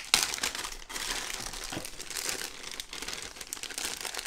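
Clear plastic zip-lock bags crinkling and rustling continuously as hands open one and handle the bags, with a sharp click at the start.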